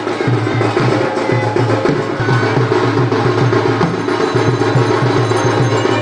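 Music with steady percussion, a low beat pulsing throughout.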